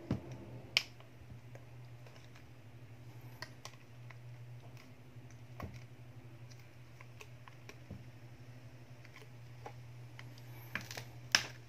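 Plastic clicks of a smartphone's housing clips being pressed and snapped into place, scattered and irregular with the loudest pair near the end, over a steady low hum.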